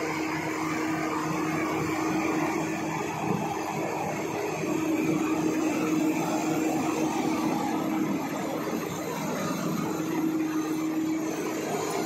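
Bulldozer's diesel engine running steadily, with a constant droning hum that swells a little in the middle and again near the end.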